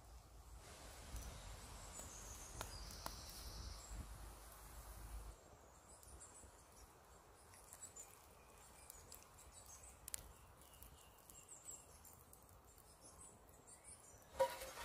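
Faint forest ambience with birds chirping high and thin, and a few soft clicks. A brief louder noise comes just before the end.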